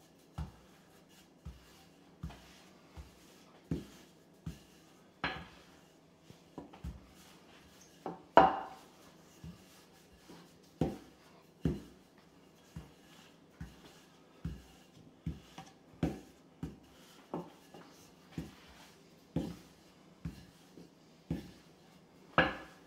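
Wooden rolling pin knocking and rolling on a granite countertop as pizza dough is rolled thin: irregular taps and knocks, about one or two a second, some much louder than others.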